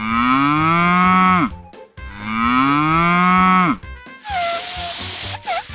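A cow mooing twice, two long drawn-out moos that rise and then drop off at the end. About four seconds in, a loud hiss of air with a faint whistling tone follows.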